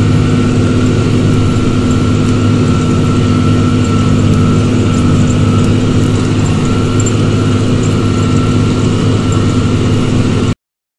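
New Holland TG285 tractor's six-cylinder diesel engine running steadily under load while pulling a four-furrow plough through the soil. It cuts off suddenly near the end.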